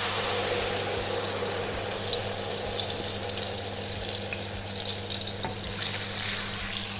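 Water-blended spice paste (turmeric, coriander) poured into hot oil in a wok, sizzling steadily as it begins to sauté, stirred with a spatula near the end.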